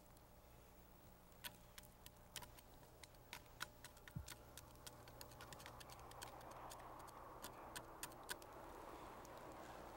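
Faint, scattered sharp clicks of hard lumps of tree gum being picked off rough bark and dropped into a cupped hand, about a dozen or more over several seconds. A soft hiss swells in the second half.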